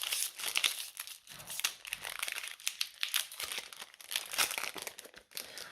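Foil wrapper of a Pokémon booster pack crinkling and crackling irregularly as it is handled and opened.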